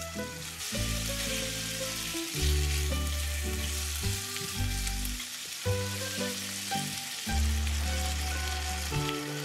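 Food frying, with a steady sizzle, under background music with held bass notes and chords.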